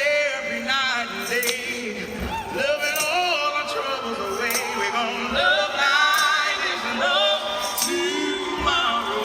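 A man and a woman singing a slow soul duet live, their voices wavering with heavy vibrato, with a sharp beat about every one and a half seconds.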